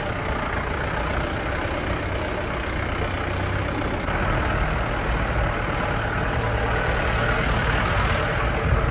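Steady rushing roar of a swollen, silt-laden mountain river in flood, running fast and turbulent.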